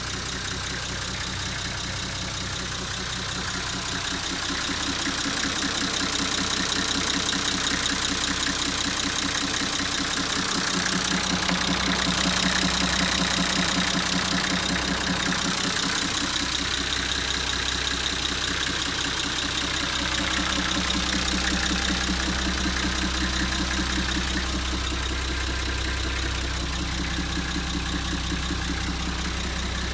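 Nissan Civilian bus's TD42 4.2-litre straight-six diesel idling steadily, heard with the engine cover in the cab open.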